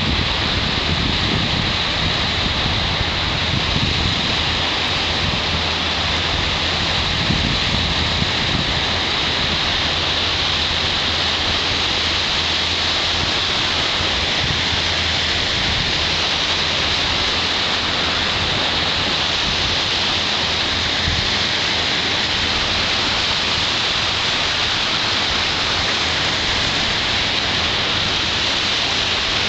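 Surf washing onto the shore as a steady hiss, with wind buffeting the microphone. The low wind rumble is heaviest for the first eight seconds or so.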